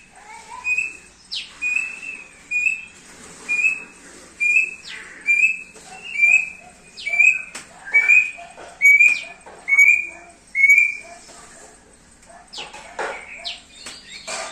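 Thick-billed heleia (opior paruh tebal) singing: a steady run of short, clear whistled notes, about two a second, with a few quick upward-sweeping notes mixed in. The run stops about eleven seconds in, and a few louder calls follow near the end.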